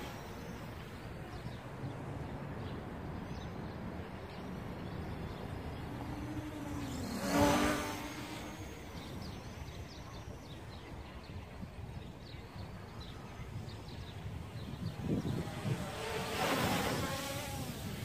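A Hubsan H501S quadcopter's brushless motors and propellers whine as it flies. The whine swells briefly about seven seconds in, with its pitch rising then falling, and grows loud again near the end as the drone comes in close, over a steady background noise.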